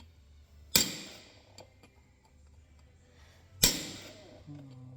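Two heavy hammer blows on a steel seal starter plate, driving a new seal into a skidder axle housing, each strike ringing out metallically; the blows come about three seconds apart.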